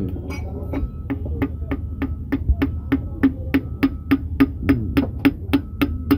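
Hammer tapping steadily on an aluminium piston crown, about four taps a second, driving the piston through a ring compressor down into an engine's cylinder liner.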